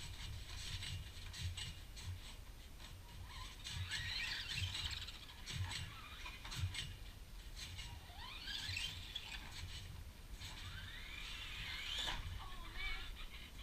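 Electric RC car's motor and gears whining, rising and falling in pitch again and again as the car speeds up and slows down, with low knocks and clicks underneath.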